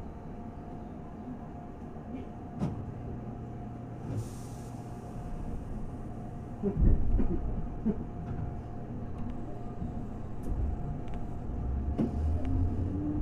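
Keihan 2200 series electric train standing at a station with its doors closed, a steady equipment hum and a brief air hiss about four seconds in. A jolt a little before halfway, then running noise that rises as the train pulls away and picks up speed.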